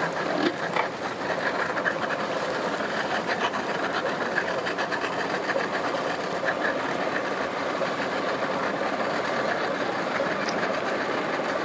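Outboard boat motors running at low speed in the water, a steady clattering mechanical drone. The outboard trailing blue smoke is the one the uploader says was making a lot of noise.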